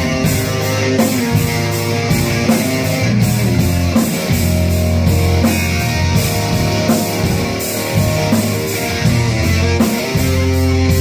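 Rock band playing live: electric guitars, electric bass and a drum kit, with steady drum beats under sustained low bass notes.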